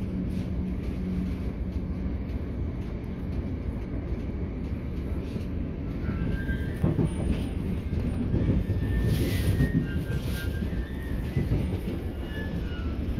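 Steady rumble of a Networker electric multiple unit (Class 465/466) running along the line, heard from inside the carriage. From about halfway in there are faint high wheel squeals and a few brief knocks.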